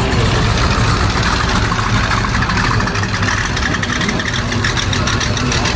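Engines of a classic Chevrolet pickup and a Model A-style hot rod idling as they roll slowly past at low speed, a steady low engine note.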